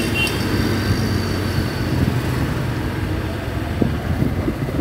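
Motorcycle ride at low speed: the engine running steadily under a rumble of wind and road noise on a helmet-mounted phone's microphone. Two short high beeps sound right at the start.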